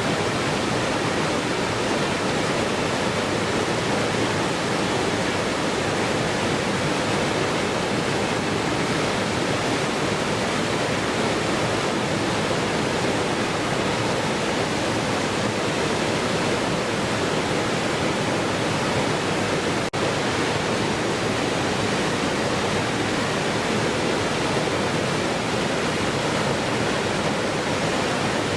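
Waterfall rushing steadily, a dense, even roar of falling water. One faint click about two-thirds of the way through.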